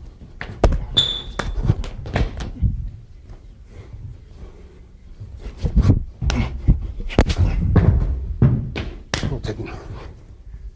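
Hands and forearms slapping and blocking, with thuds of body contact, in a fast close-range Wing Chun attack-and-defence drill. The slaps and thuds come in two flurries with a quieter lull between, and there is a brief high squeak about a second in.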